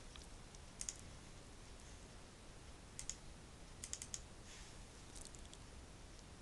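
A few faint, light clicks at a computer: one about a second in, one at three seconds, a quick run of three or four just after four seconds, and one more near five seconds.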